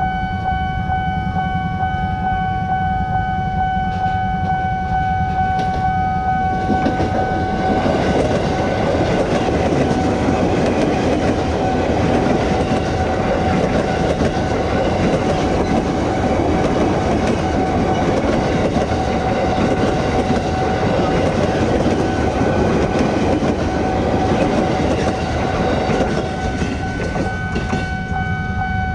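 A KRL Commuter Line electric train passes over a level crossing, its passing noise rising about 7 s in and falling away near the end. Throughout, the crossing's warning alarm sounds as a steady tone with a pulsing chime above it.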